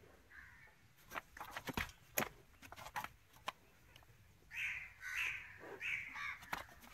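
A crow cawing about four times in the second half, harsh calls in quick succession, with a few faint taps before them.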